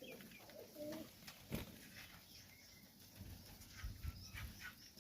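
Serbian highflyer pigeons cooing softly in the loft, with a sharp click about a second and a half in.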